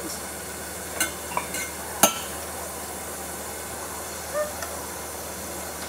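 Metal utensil clinking and knocking against a cooking pot and a plastic cutting board as chopped food is scraped into the pot, with one sharp knock about two seconds in. A steady hiss from the steaming pot runs underneath.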